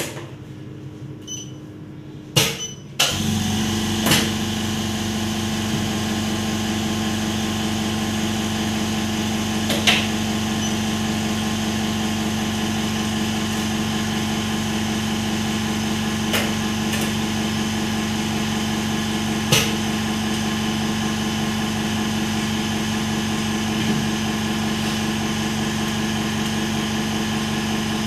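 A machine motor starts about three seconds in and keeps running with a steady, even hum. Several sharp clicks and taps sound over it, a few seconds apart.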